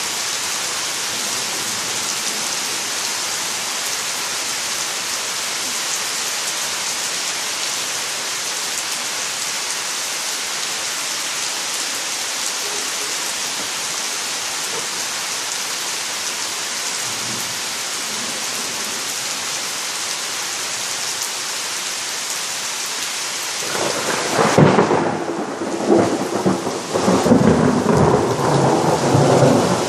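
Steady heavy rain falling on trees and ground. Near the end a loud rumble of thunder rolls in and keeps rumbling unevenly.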